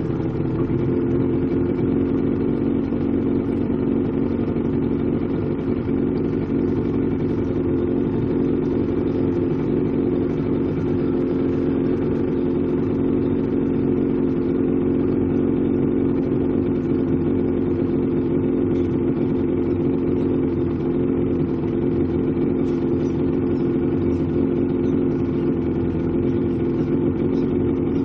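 Motorboat engine idling with a steady, unchanging drone.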